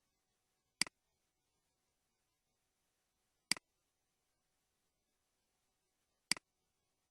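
Three sharp double clicks, evenly spaced about two and a half seconds apart, each a loud snap followed at once by a softer one.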